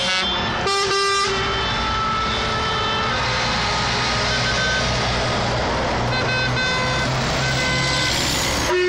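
Convoy of trucks driving past with engines running and tyre noise on the road. A truck horn sounds briefly about a second in, and another horn blast starts near the end.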